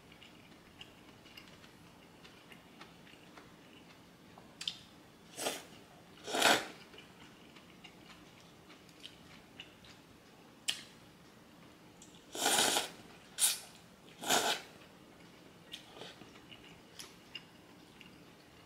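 Close-up eating sounds: noodles being slurped and chewed in about six short, noisy bursts, the loudest about a third of the way in and a longer slurp a little past the middle, with faint mouth and chopstick ticks between.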